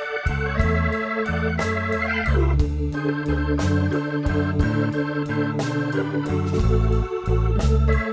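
Instrumental background music: sustained organ-like keyboard chords over a stepping bass line, with drum hits.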